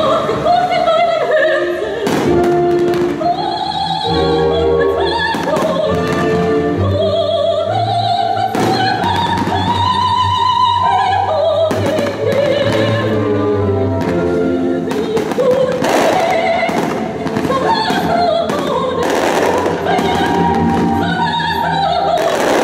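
Operatic singing with accompaniment played over a loud sound system, with repeated sharp bangs from fireworks bursting overhead.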